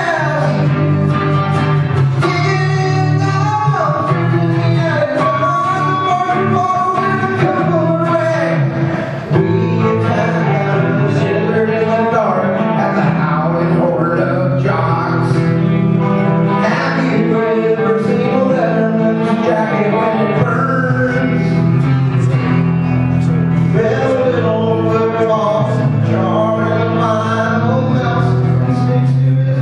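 Live music: a man singing while playing an electric guitar through a PA.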